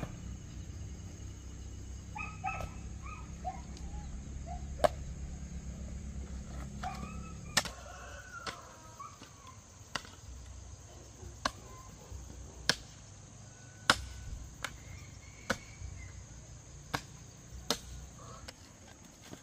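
Hand hoe chopping into soil, a sharp strike about every second and a half through the second half, over a steady high insect drone. Bird chirps come in the first half.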